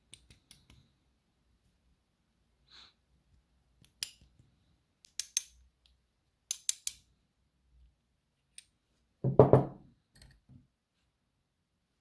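Small metal lock parts and tweezers clicking against each other and a metal pin tray: scattered sharp ticks, then a louder metallic clatter about nine seconds in and a couple of light knocks after it.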